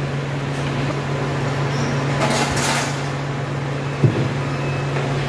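Steady low machine hum at a warehouse loading dock, with a short burst of hiss about two seconds in and a single sharp knock about four seconds in.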